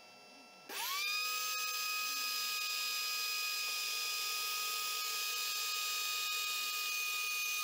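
Rotary-tool spindle of a homemade CNC router spinning up about a second in, rising quickly in pitch, then running at a steady high-pitched whine.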